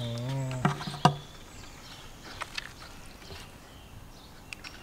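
A man's voice held in one drawn-out, wavering sound for about a second, with two sharp clinks near its end. Then a quiet outdoor background with a few faint clicks.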